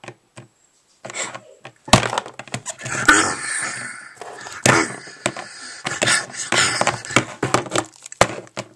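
Plastic toy figurines knocked against each other and tapped on a wooden floor as they are made to fight: a rapid, irregular run of clacks and thuds, starting about two seconds in and dying away near the end.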